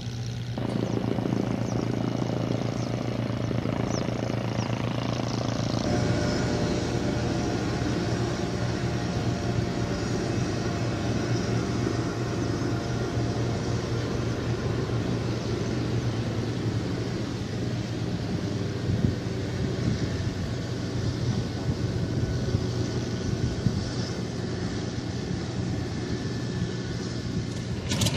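Hawker Hurricane's Rolls-Royce Merlin V12 engine running steadily at low taxiing power, with propeller drone and exhaust rumble. The sound grows fuller and brighter about six seconds in.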